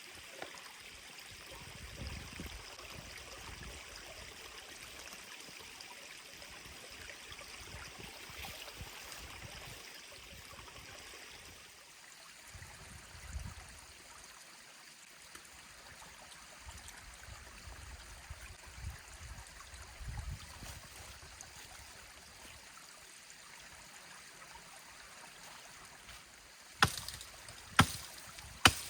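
Forest stream flowing steadily, with scattered low rumbles. Near the end, three sharp knocks about a second apart stand out above the water.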